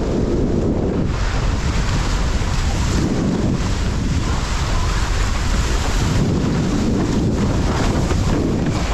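Wind buffeting the microphone, with water rushing and splashing under a windsurf board under sail. The noise is loud and swells and eases every second or two.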